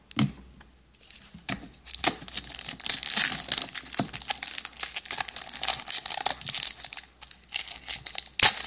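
Foil booster-pack wrapper of trading cards crinkling steadily as it is handled and worked open, ending with a sharp tearing snap near the end.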